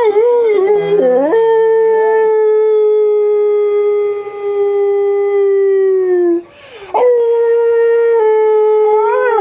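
Pet dog howling: two long, drawn-out howls at a steady pitch, with a brief break about six and a half seconds in.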